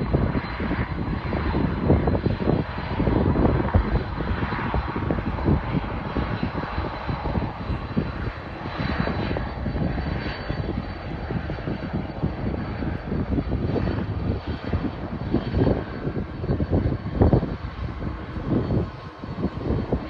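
Boeing 767-300ER's twin jet engines running as the airliner rolls out after landing on a wet runway, a loud rumble that swells and ebbs.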